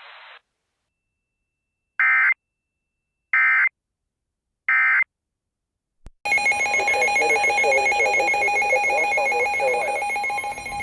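Emergency Alert System end-of-message signal: three short bursts of screeching digital data tones, about a second and a half apart, closing a tornado warning broadcast. About six seconds in, after a click, a louder hissy background with steady high electronic whine tones starts.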